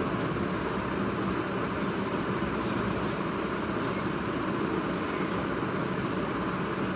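Steady, even background rushing noise with no distinct events.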